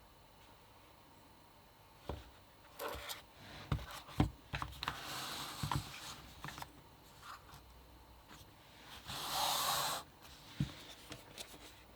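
Hands handling packaging at close range: scattered clicks and knocks with bits of rustling, and a louder rustle lasting about a second around nine seconds in.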